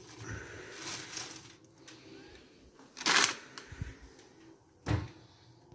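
Plastic bag rustling as a hand rummages in it, followed by two louder, brief handling sounds about three and five seconds in.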